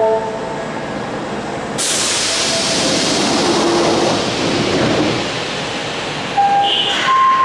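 Subway train at the platform: a sudden hiss of air about two seconds in, fading into the train's rumble, with short electronic tones near the end.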